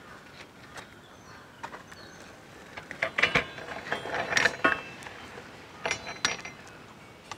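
Metal hook rods clinking and scraping against a large metal cooking pot as it is lowered into a brick pit onto hot charcoal. The clinks come in short clusters, about three seconds in, around four and a half seconds and again around six seconds, some with a brief metallic ring.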